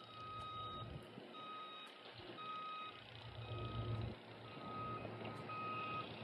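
A vehicle's reversing alarm beeping steadily, about one high beep a second, over a low rumble.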